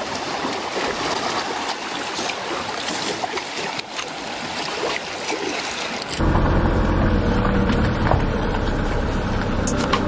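Small waves washing and lapping among rocks at a lake's edge, a steady rushing noise. About six seconds in, it gives way abruptly to a louder, lower rumble with a few steady low tones.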